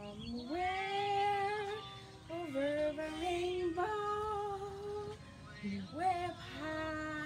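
A teenage girl singing a slow song about rainbows, holding long notes in three phrases with short breaths between them.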